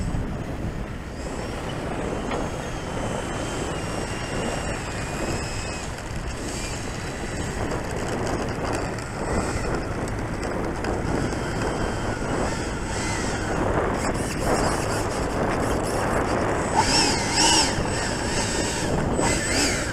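Electric ducted fan of a Freewing T-33 RC jet whining at low power as the model rolls on the runway, with wind rumbling on the microphone. The fan whine swells briefly near the end.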